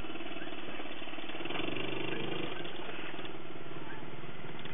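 Small boat outboard motor running steadily at low speed, a fast even putter, as the boat moves along the water.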